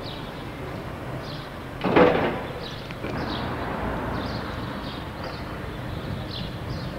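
Steady background rumble with one loud, short bang about two seconds in, and faint short high chirps scattered throughout.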